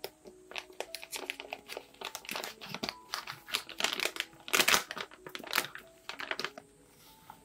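Foil cocoa-powder pouch crinkling as hands grip and work at its top to open it, in irregular crackles with a louder burst about four and a half seconds in.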